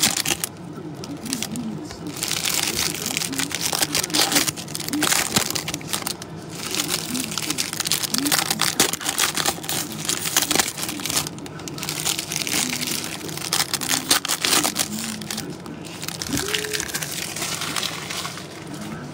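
Foil trading-card pack wrappers crinkling and tearing as packs are ripped open and handled by hand, in several long stretches with short pauses between.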